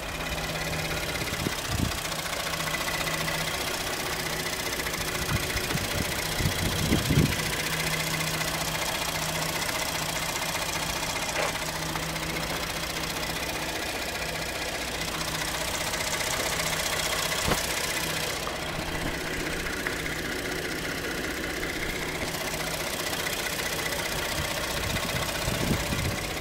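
2014 Ford F-150's 3.5-litre EcoBoost twin-turbo V6 idling steadily, heard up close with the hood open.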